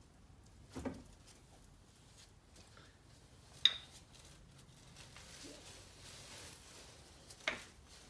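Three sharp metal clinks and knocks from hand tools being handled on a garage floor; the loudest, a little before halfway, is a bright ringing clink.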